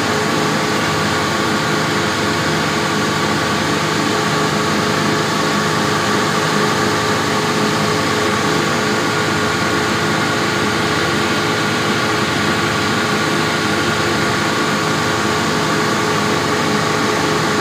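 Motor cruiser's engine running at a steady speed under way, heard from the helm inside the enclosed cabin: a constant drone with a steady hum over a wide rushing hiss of water and wind.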